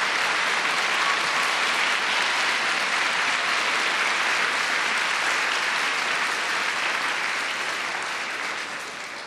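A seated audience of students applauding steadily, dying down over the last couple of seconds.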